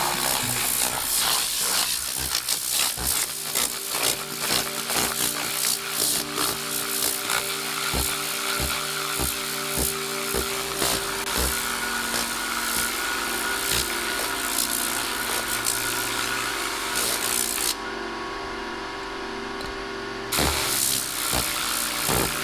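Compressed air hissing from a Tornador cleaning gun, with background music and scattered clicks. The air cuts out for a couple of seconds near the end, then starts again.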